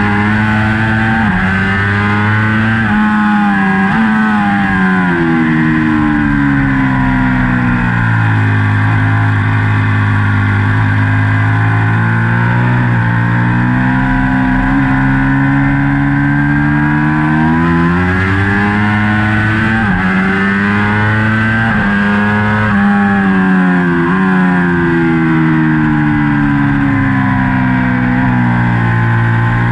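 Ducati Panigale V4 race bike's V4 engine heard onboard at racing speed. Its revs climb under acceleration with sharp breaks at gear changes, and fall away several times when slowing for corners.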